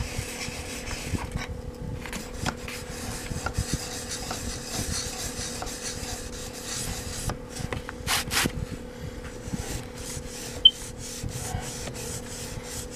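Steel scissor blade being stroked over and over across a wet sharpening stone, a gritty scraping of blade on stone, with one sharp click about two-thirds of the way through. Under it runs the steady hum of a small muffin fan.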